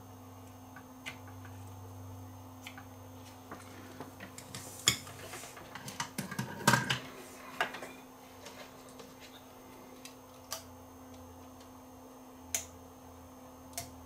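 Hard clatter of a soldering iron and tools being set down and a TV circuit board being handled, loudest about five to seven seconds in. A few sharp clicks follow near the end over a faint steady electrical hum.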